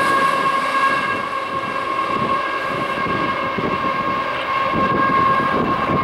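The tail end of a Union Pacific double-stack freight train rolling away, its rear GE ES44AC locomotive just past. Wheels clatter on the rail under a steady high ringing of several tones held together.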